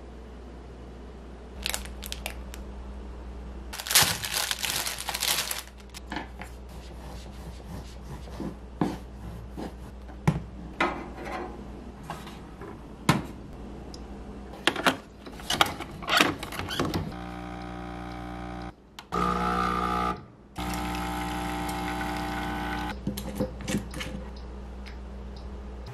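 Kitchen handling sounds: a series of clicks and knocks as jars, containers and utensils are picked up and set down. A rustle of packaging comes about four seconds in, and a steady hum runs for several seconds in the latter part.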